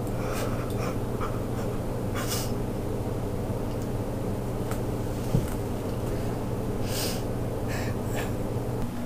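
Steady low hum with a few short breaths over it and a single sharp click about five seconds in.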